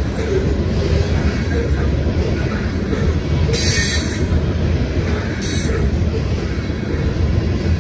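Covered hopper cars of a Union Pacific grain train rolling past, a steady rumble of steel wheels on rail. Two brief high-pitched squeals from the wheels come about three and a half and five and a half seconds in.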